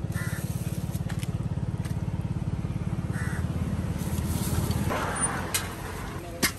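An engine idling with a rapid, even low pulse that fades out about five seconds in. A few sharp knocks sound over it, the loudest near the end.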